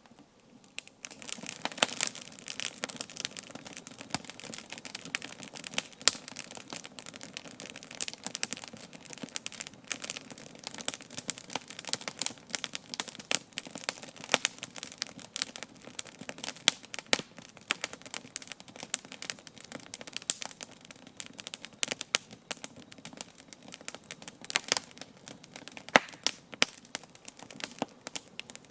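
Wood campfire crackling: dense sharp snaps and pops over a steady hiss of burning wood, picking up about a second in.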